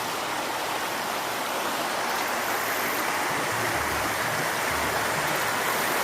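Floodwater rushing steadily after heavy thunderstorms, growing a little louder toward the end.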